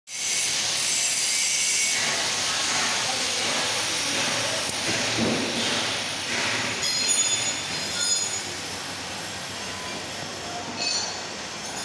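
Compressed air hissing through an air-driven tube leak detector gun held to a heat-exchanger tube as it pulls vacuum on the tube: a steady loud hiss that drops somewhat about halfway through, with brief high whistles about two thirds of the way in.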